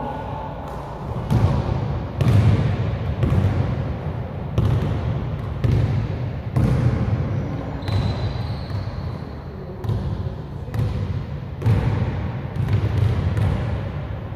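A basketball bouncing and being dribbled on a gym floor, one echoing thud roughly every second, spaced unevenly.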